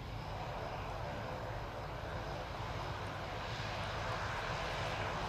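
Alenia C-27J Spartan's two Rolls-Royce AE 2100 turboprop engines running at taxi power, a steady propeller and turbine drone that grows gradually louder as the aircraft comes closer.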